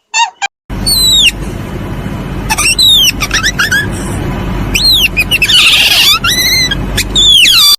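Bird calls: a series of high squealing notes, each sliding steeply downward in pitch, over a steady low rumble.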